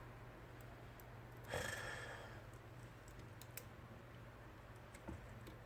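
Faint small clicks and ticks of an IBM Selectric II's metal mechanism being handled while its return and tab cables are fitted, with one short louder rush of noise about a second and a half in, over a low steady hum.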